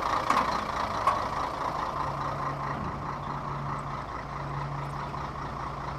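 Scania 113 truck's diesel engine running as the truck moves off slowly, with a steady hiss-whistle that the driver puts down to a leak in an intercooler hose. Two sharp clicks in the first second, and a steady low engine note about two seconds in.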